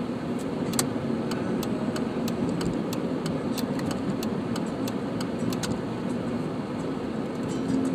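Car driving on the road, heard from inside the cabin: a steady low rumble of engine and tyre noise, with frequent light, irregular clicks and rattles over it.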